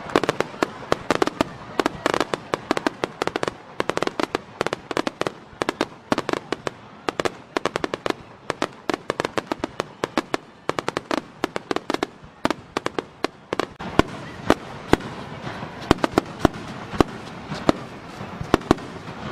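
A fireworks barrage: aerial shells bursting and crackling in rapid succession, several sharp reports a second. About two-thirds of the way through, the bursts come a little less densely but with louder single bangs.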